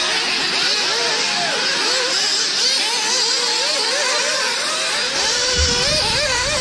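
Several nitro RC buggies racing at once, their small two-stroke glow engines revving up and down in a constant overlapping whine.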